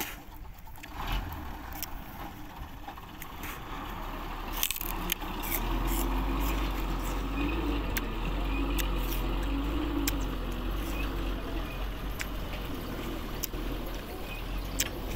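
Low, steady engine rumble of an unseen motor vehicle that builds up over the first several seconds and then holds, with scattered sharp clicks and crackles over it.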